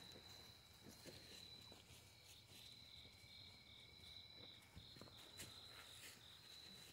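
Near silence with the faint, steady, high-pitched trill of night insects such as crickets; the trill pulses for a couple of seconds mid-way.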